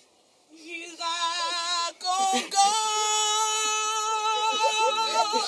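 A woman's voice singing long, drawn-out notes with a wavering vibrato. It begins about a second in and settles into one long held note.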